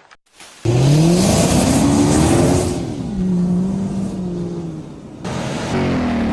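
Car engine sound effect revving up and settling to a steady run. It starts abruptly about half a second in and fades, then a second engine clip cuts in abruptly near the end.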